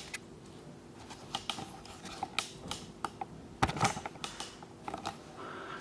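Irregular light clicks and taps from handling the iMac's power cable and its magnetic connector, with a cluster of louder knocks a little past the middle.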